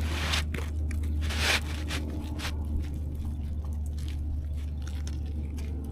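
Asphalt roof shingles being handled and lifted, with two loud scrapes in the first second and a half, then fainter scraping and crunching, over a steady low rumble.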